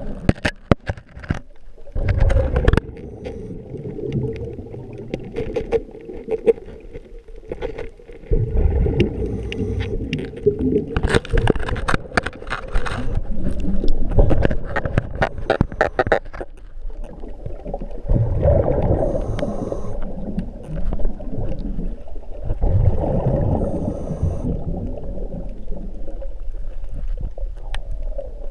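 Muffled underwater sound through an action-camera housing while snorkelling: a low rumble and bubbling, with bursts of sharp clicks and knocks, thickest in the middle.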